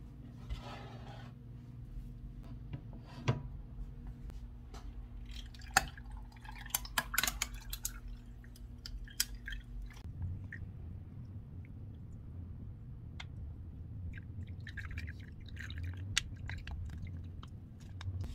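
Ice cubes clinking and clattering into a glass, then coffee poured over the ice, with the ice cracking and clinking as the glass fills.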